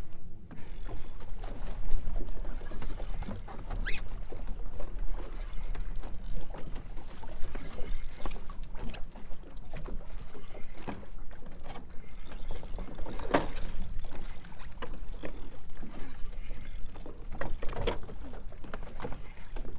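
Small waves slapping and lapping against the hull of a drifting fiberglass skiff, in a quick irregular patter, with a few louder slaps over a steady low rumble.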